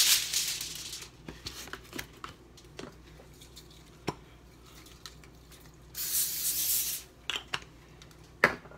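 A sheet of aluminium foil crinkling as it is handled and laid flat, then a few light taps. About six seconds in, a one-second hiss of vegetable-oil non-stick cooking spray from an aerosol can, followed by a few sharp knocks.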